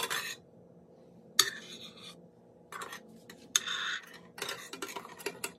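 A metal spoon and a metal cake server scraping and clinking on a ceramic serving plate as stuffed eggplants are lifted and set down, in about five short, irregular bursts.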